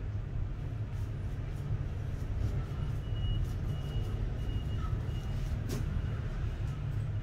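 Steady low background rumble, with a faint, broken high tone in the middle.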